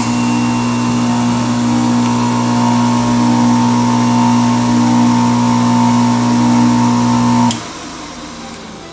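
Jack LaLanne Power Juicer Express motor running steadily, a hum with a higher whine, then cutting off abruptly about seven and a half seconds in. It runs because a shaved-down pencil eraser pushed into the hole presses the trigger switch inside, standing in for the juicer's broken plastic tab.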